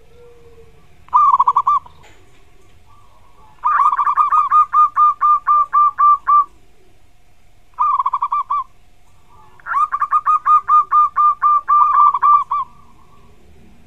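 Zebra dove (perkutut) singing: a short burst of rapid cooing notes, then a long fast run of repeated notes, the pattern given twice.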